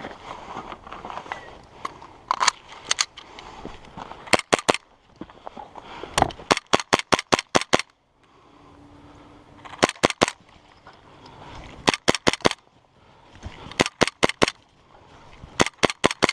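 Airsoft guns firing in short bursts of sharp cracks, several shots per burst, with a longer rapid string of about eight shots around six to eight seconds in.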